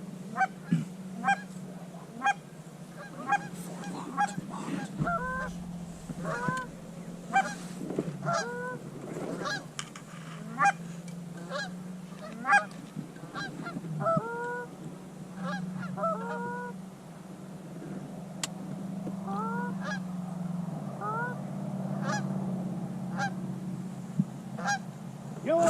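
Canada geese honking: a long series of short, pitched honks and clucks, one to three a second, some rising in pitch, over a steady low hum.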